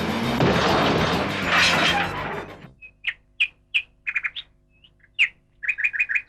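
A loud rushing noise dies away about two and a half seconds in, then a bird chirps in short, high calls: single chirps at first, then quick runs of four or five near the end.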